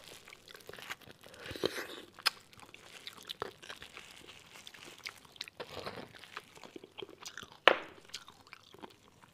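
Close-miked eating sounds of braised beef bone marrow: soft wet chewing and mouth smacks with scattered small clicks. The loudest is one sharp click about three-quarters of the way in.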